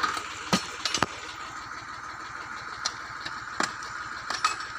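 Eicher tractor's diesel engine idling with a steady low chug, and a few sharp clicks and knocks over it.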